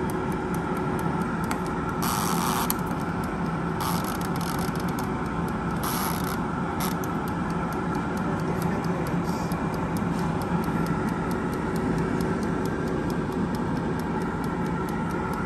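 Ikon air fryer running: its fan whirs steadily with a hum while its mechanical dial timer ticks evenly. A few short hissing noises come about two, four and six seconds in.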